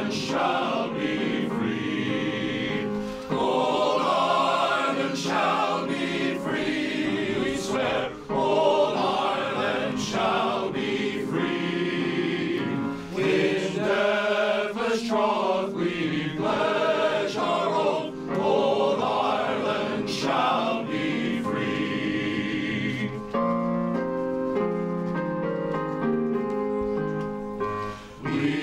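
Men's glee club singing an anthem in harmony with electronic keyboard accompaniment. Near the end the voices drop out and the keyboard plays on alone for a few seconds.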